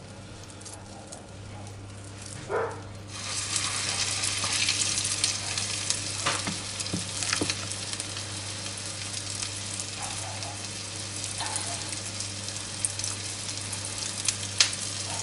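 Spoonfuls of meatball mixture dropped into hot liquid butter in a frying pan, sizzling steadily from about three seconds in, with a few sharp clicks of the spoon. A steady low hum runs underneath.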